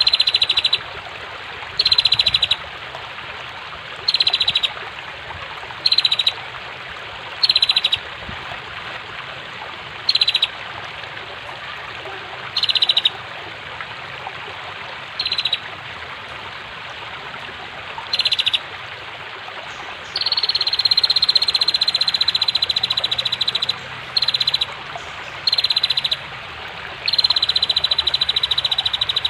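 Female prinia (prenjak) giving short buzzy pulsed trills about every two seconds, with two longer trills of a few seconds in the second half, over the steady rush of fast-flowing water.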